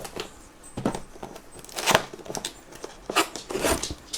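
Packaging being handled while a box is unpacked: plastic and paper rustling and tearing in about four short bursts.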